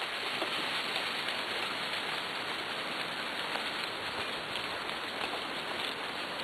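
Steady rushing noise of a dog cart moving along a wet, leaf-strewn dirt trail behind a sled-dog team, with a few faint ticks.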